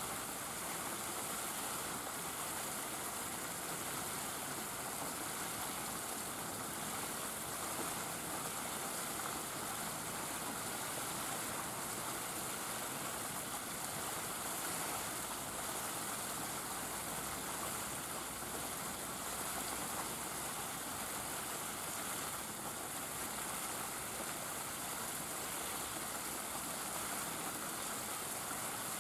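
Steady ambient noise: an even hiss with no distinct events.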